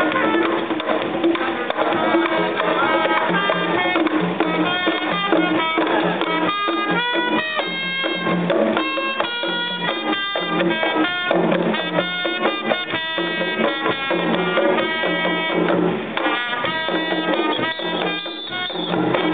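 Live band music with drums and held horn-like notes, playing steadily.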